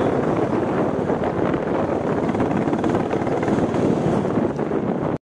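Wind buffeting the microphone on a moving Royal Enfield Bullet 350 motorcycle, its single-cylinder engine running underneath. The sound cuts off abruptly about five seconds in.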